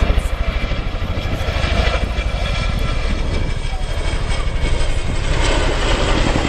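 Boeing CH-47 Chinook tandem-rotor helicopter flying overhead. Its rotor blades give a loud, rapid, steady beat, with a steady turbine whine above it.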